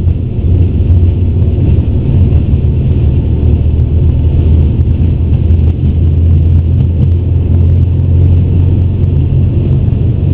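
Airbus A350 accelerating down the runway on its takeoff roll at takeoff thrust, heard from the cockpit: a loud, steady low rumble of the wheels on the runway and the airframe, with a fainter hiss of airflow above it.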